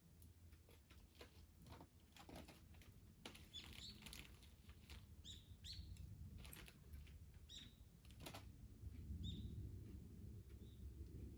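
Faint crackling of a wood campfire, irregular clicks and pops. A small bird chirps several short notes over the second half.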